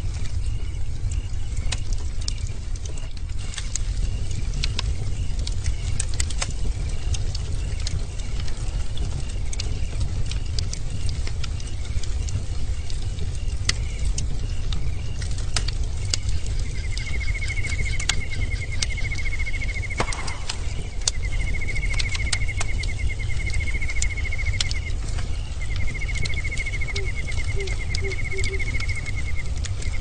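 Bonfire crackling and popping over a steady low rumble of flames. From about halfway through, a high, rapid trill joins, in three long phrases a second or so apart.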